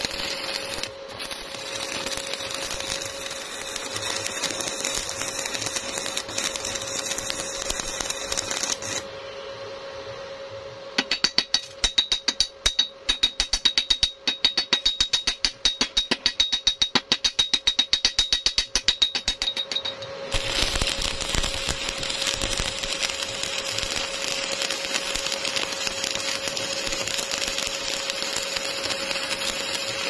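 Stick (arc) welding crackle and sizzle on a steel door hinge. Partway through the arc stops and a hammer knocks the slag off the hinge welds in a rapid run of ringing metal strikes lasting several seconds. Then the steady arc crackle starts again.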